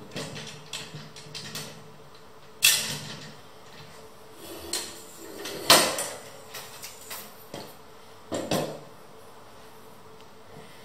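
Allen key turning a bolt in a metal rocking-chair frame joint, making small metallic clicks, followed by louder knocks and clunks as the metal frame is handled. The loudest come about two and a half seconds in, about five and a half seconds in, and a quick double near the end.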